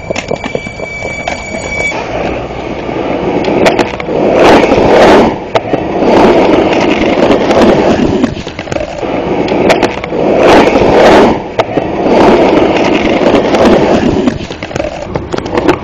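Skateboard wheels rolling over rough concrete in four or five surges of one to two seconds each, with sharp clacks from the board and the joints in the ground.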